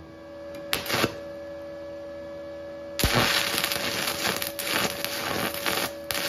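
Stick-welding arc from an inverter welder in MMA mode: the electrode is scratched on the steel plate and catches briefly twice about a second in, then strikes about three seconds in and burns with a steady crackle and spatter.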